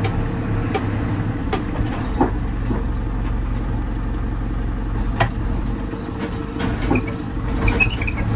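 JCB 4CX backhoe loader's diesel engine running steadily, with scattered sharp knocks and a few short high squeaks and clicks near the end.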